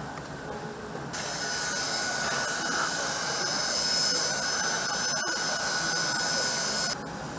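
Handheld electric hot-air gun running: a steady high whine with a rush of air that switches on about a second in and cuts off abruptly shortly before the end, over a constant workshop hum.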